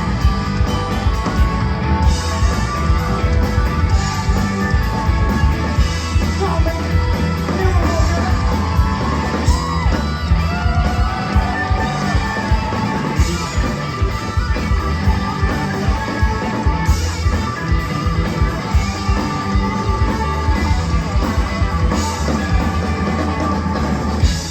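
A rock band plays loudly on stage, with electric guitar over bass and drums. The music stops sharply at the end.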